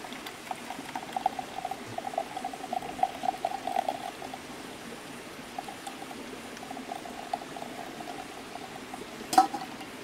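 Hot, pulpy rhododendron-flower juice pouring from a steel pot through a metal tea strainer into a mug, trickling and splattering in two stretches. A single sharp tap near the end.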